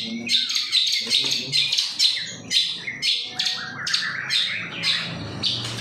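Long-tailed shrike (pentet) singing a fast run of harsh, scratchy notes, about three or four a second, the kind of song used as a lure to set other shrikes singing.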